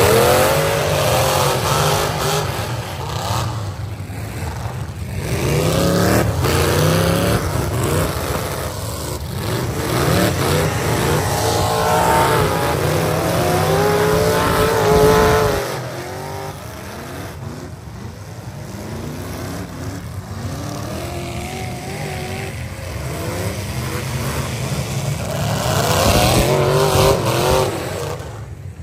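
Several demolition derby cars' V8 engines revving up and down as the cars drive slowly past one after another. The sound comes in several swells, with the loudest stretch about a third of the way through.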